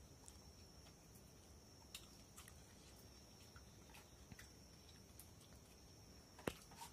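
Near silence: faint scattered ticks and small clicks over a steady, faint high-pitched tone, with one sharper click near the end.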